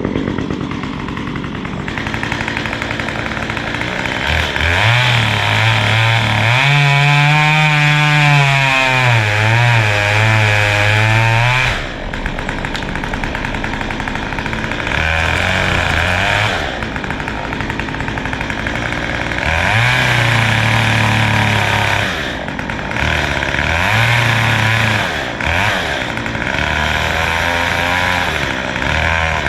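Two-stroke chainsaw running and revving in repeated bursts as it cuts: one long run of about seven seconds whose pitch climbs and then drops, then several shorter revs, with the saw running more quietly in between.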